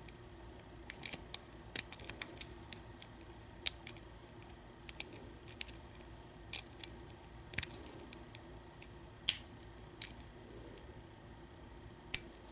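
Lock pick working the pin stack of an American 1305 padlock's restricted-keyway cylinder, with sharp, irregular metallic clicks as the pins are lifted and set.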